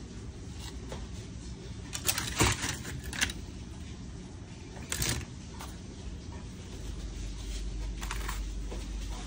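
Aluminium foil crinkling in short bursts as a hand handles food wrapped in foil and set in a foil pan. There is a cluster of crinkles about two to three seconds in, and single ones near the middle and near the end, over a steady low hum.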